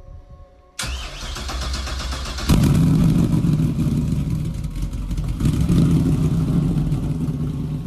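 High-performance inboard boat engine running at the dock. It comes in suddenly about a second in, jumps louder about two and a half seconds in, then runs on with a steady deep rumble.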